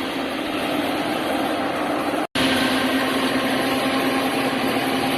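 Rice combine harvester running steadily: a constant engine and machinery drone with a steady hum, broken by a momentary silent gap about two seconds in.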